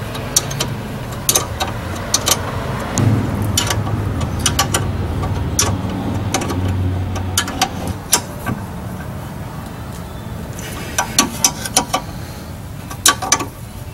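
Hand wrench clicking and tapping on metal as the rear brake caliper bolts are tightened. The clicks are sharp and irregular, with a quick cluster near the end, over a steady low rumble.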